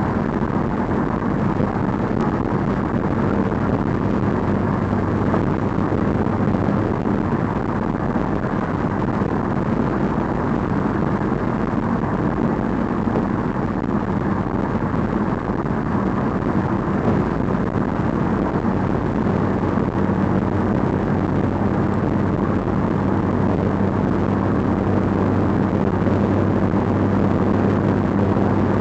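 Steady engine running with a low, even hum and a rushing noise underneath, unchanging throughout.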